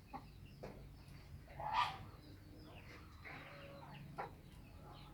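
Native kampung chickens clucking in their coop, with one louder call about two seconds in and a few short clucks and clicks around it.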